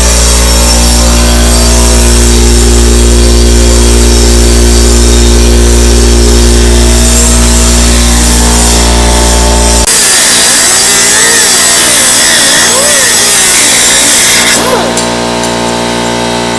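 Pneumatic air drill boring a hole through metal for the muffler bracket, loud and steady with a low machine hum. About ten seconds in, the hum drops away and a high hissing whir takes over, easing off near the end.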